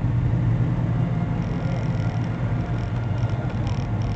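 Scooter running with a steady low drone while riding along.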